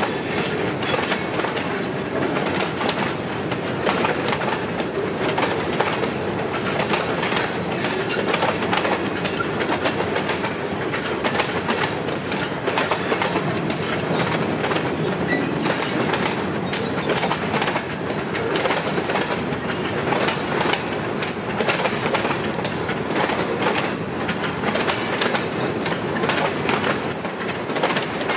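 Freight train cars rolling past close by, their wheels clicking steadily over rail joints, with a few brief high wheel squeals.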